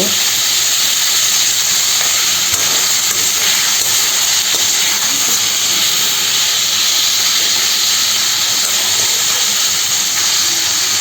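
Chopped tomatoes sizzling steadily as they fry in hot oil in a pan, cooking down to a mash for a curry base.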